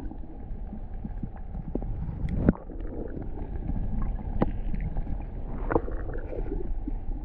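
Stream water rushing and sloshing, with a heavy low rumble on the microphone and three sharp knocks spread through it.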